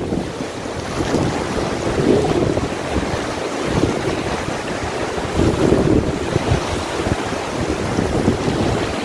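Wind buffeting the microphone over heavy rain and small waves washing on the shore. The noise swells in gusts about two seconds in and again past five seconds.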